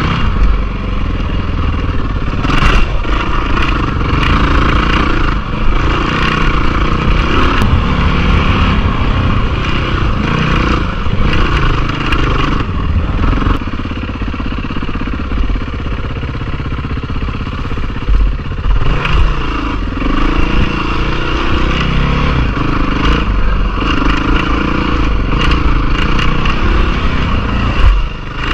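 Dirt bike engine revving up and down as the bike rides a rough trail, with wind rumble on the microphone. There are occasional knocks and rattles as the bike goes over bumps and ruts.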